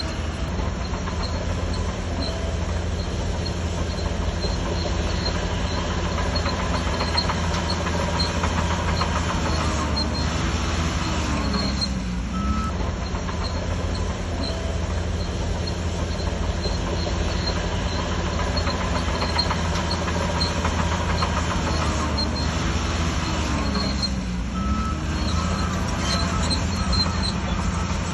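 Shantui DH17C3 crawler bulldozer working: its diesel engine drones steadily under load while the steel tracks clatter and squeal. The engine note dips and swings in pitch twice, about twelve seconds apart.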